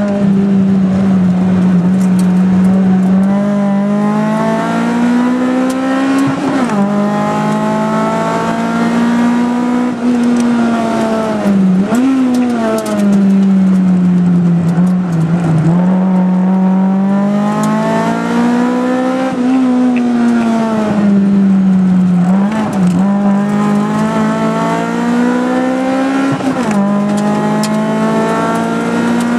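Tuned Mitsubishi Colt MIVEC engine heard from inside the cabin under hard driving. The engine note climbs steadily and then dips sharply, several times over.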